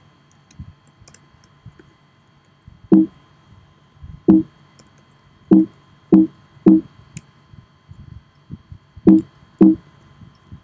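Seven short, low knocks spaced irregularly, from keys struck on a computer keyboard while a terminal command is typed. Two come close together near the middle and two more near the end.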